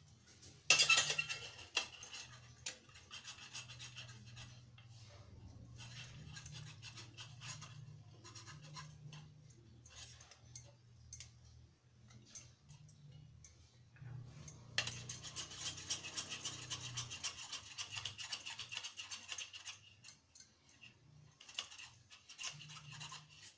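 Mozzarella cheese being grated by hand on a flat stainless steel grater: spells of quick rasping strokes with short pauses between, loudest about a second in and again in the middle stretch.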